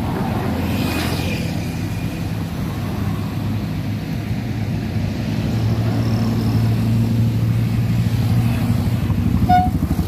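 Road traffic driving past close by: car and minibus engines and tyre noise. A low engine hum grows stronger from about halfway as the minibus passes. A brief high-pitched chirp sounds near the end.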